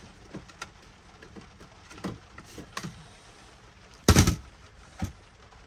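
Clicks and knocks of objects being handled and set down on a workbench, with one loud thump about four seconds in and a sharper knock about a second later.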